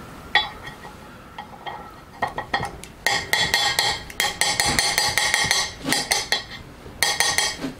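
Steel parts and pliers clinking and tapping on a metal surface plate as a shaft is shrink-fitted into a heated steel block: a few scattered taps, then from about three seconds in a dense run of ringing metallic clinks.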